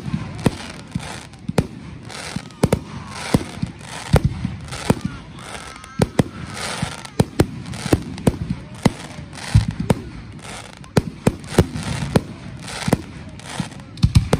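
Aerial fireworks shells bursting in quick succession, with sharp bangs about two a second and crackling between them.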